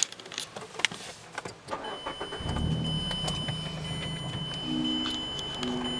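Car engine starting about two seconds in and then running steadily, with a steady high-pitched whine over it. Scattered clicks and knocks come before the engine catches.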